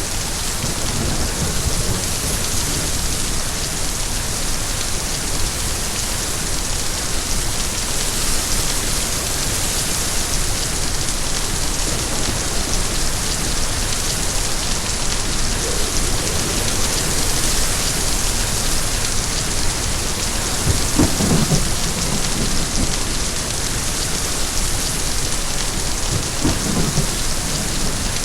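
Steady heavy rainfall, a dense, even hiss of rain on surfaces, with a couple of brief low rumbles in the second half.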